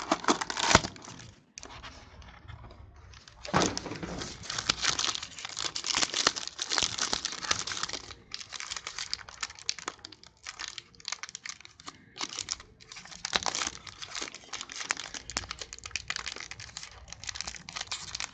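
Gold foil wrapper of a trading-card pack crinkling and tearing as it is pulled open by hand: a dense run of crackles with a few short pauses.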